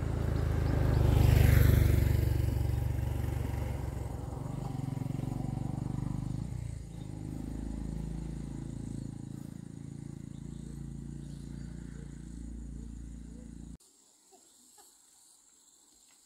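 A motor vehicle passing on the road: its engine swells to its loudest with a rush about a second and a half in, then the engine drone carries on, slowly fading. Near the end it cuts off suddenly, leaving near quiet with faint chirps.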